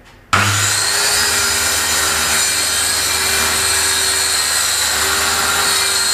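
Circular saw running on a guide rail, cutting lengthwise through a plywood sheet. The sound starts abruptly about a third of a second in and holds steady as a loud whine with the rasp of the blade in the wood.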